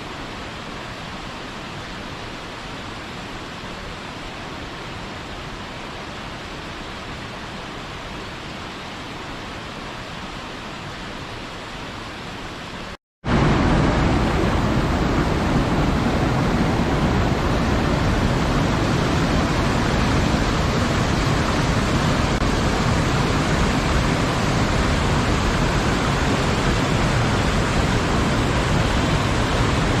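Waterfall rushing as a steady, even roar of falling water. About 13 seconds in it drops out for a moment and comes back louder and fuller, as if from a nearer or bigger fall.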